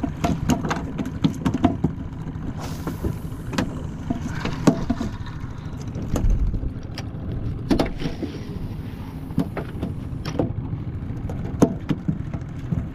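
Irregular knocks and clicks aboard a small open fishing boat, over a steady low rumble.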